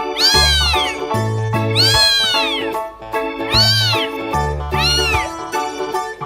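A cat meowing four times, each call rising then falling in pitch, about a second and a half apart, over background music with sustained chords and a bass line.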